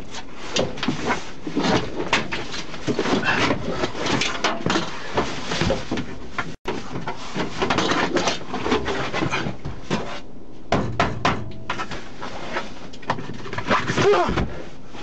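A person struggling and shifting on a hard moulded-plastic police-car back seat, making many irregular knocks, thumps and rustles, with some low muttering.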